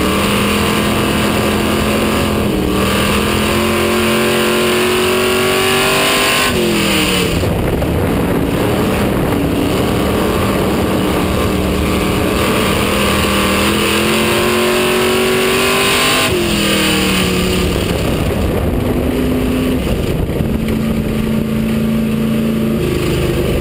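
Street stock race car's engine heard from inside the cockpit under hard throttle. The revs climb along each straight and drop sharply as the driver lifts for the turns, about six and a half and sixteen seconds in, then build again.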